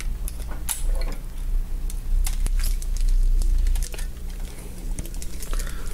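Small screwdriver clicking and scraping against the screws and plastic inside the underside of a Lenovo G50-70 laptop as its Wi-Fi network card is unscrewed: scattered light clicks over a steady low electrical hum.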